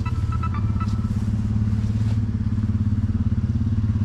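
An engine running at a steady speed, with a fast, even pulsing beat and no change in pitch.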